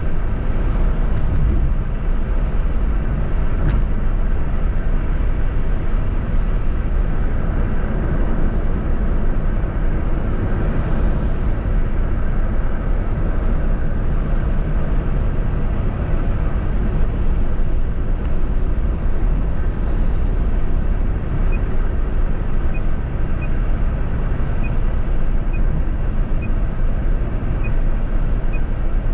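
Steady road and engine noise of a car driving along a highway. A faint, regular ticking joins in about two-thirds of the way through.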